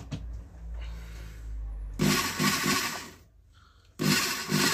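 Corded Bosch rotary hammer drill switched on: it runs for about a second starting two seconds in, cuts off, and starts again near the end. This is a test run after repairing a loose contact in its power cord, and it runs without cutting out.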